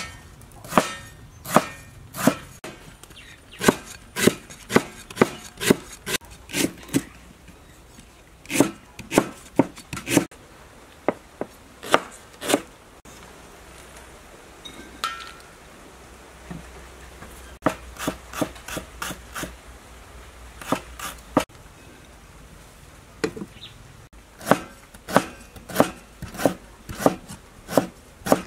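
Steel cleaver chopping through lemongrass stalks onto a thick round wooden chopping board: sharp knocks about two a second, stopping for a few seconds midway while the slices are scooped up on the blade. Near the end the chopping is of galangal, in a quicker run of knocks.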